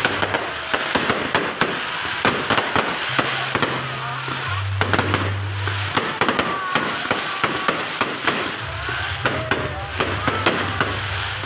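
A fireworks display going off without a break: a dense, rapid run of sharp pops and bangs from aerial bursts.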